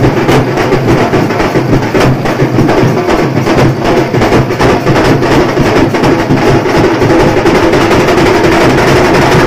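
Loud, fast drumming with music, the strokes coming several times a second; a steady held tone grows stronger near the end.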